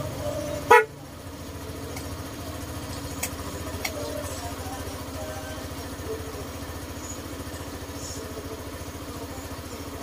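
Suzuki Burgman Street 125 scooter's single-cylinder engine idling with a steady low pulse, and its horn giving one short toot just under a second in. Two faint clicks follow a few seconds later.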